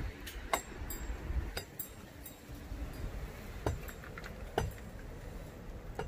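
A metal hook latch on a wooden shed door being unfastened and the door handled: a scattering of sharp metallic clinks and knocks. Low wind rumble buffets the microphone throughout.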